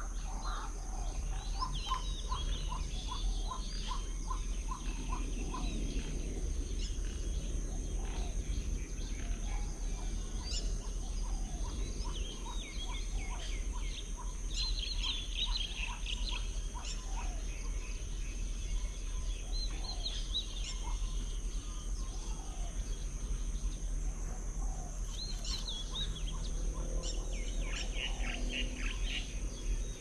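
Several birds calling and chirping, with a quick run of repeated notes in the first few seconds and bursts of high, fast chirps later on, over a steady high-pitched drone.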